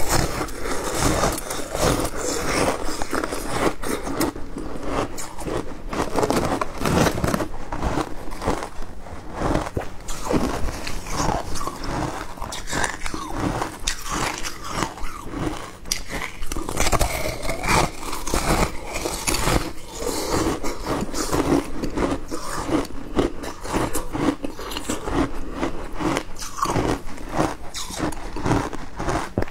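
Someone biting into and chewing a block of compacted shaved ice soaked in passion fruit juice: a dense, continuous run of crisp crunches.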